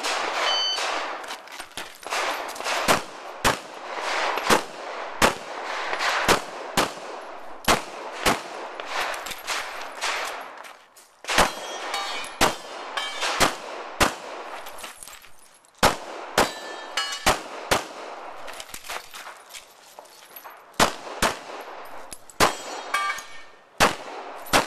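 An electronic shot timer beeps just after the start. Then a long string of handgun shots follows in runs of roughly two a second, with short pauses where the shooter moves or reloads, as a practical pistol stage is shot.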